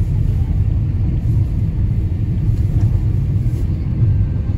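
Steady low rumble of a car's engine and tyres heard from inside the cabin while driving on a snowy road.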